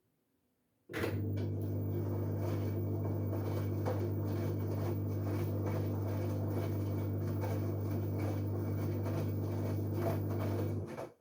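LG direct-drive washing machine mid-cycle, running steadily with a low, even hum and water noise; it starts abruptly about a second in and stops just before the end.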